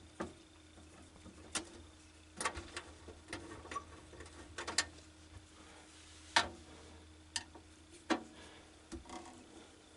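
Scattered sharp clicks and knocks from hands handling a desktop computer case, about a dozen at irregular intervals, the loudest a little past the middle, over a faint low hum.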